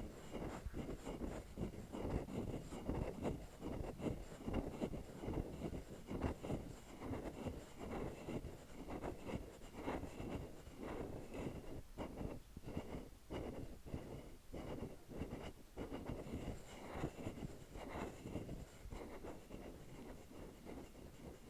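A hollow capsule being scraped and tapped with a tool, in an irregular, continuous run of short strokes that eases off a little near the end.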